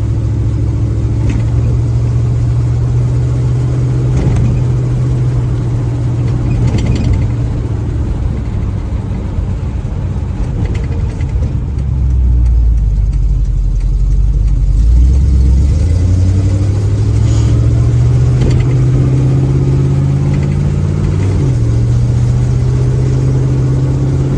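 Small-block Chevy 350 V8 through a new exhaust, heard from inside an open, windowless cabin while driving. The engine drones steadily, drops to a deeper note about twelve seconds in, then climbs gradually in pitch as the car picks up speed.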